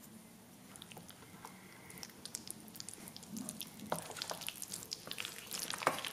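Chopsticks mixing noodles through thick black bean sauce in a bowl: wet squelching and sticky smacking with small clicks, getting busier and louder as the mixing goes on.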